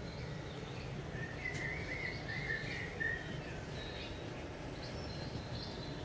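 Recorded birdsong playing from a television's speaker: a run of chirping calls about a second and a half in, with fainter high chirps on and off over a steady low background noise.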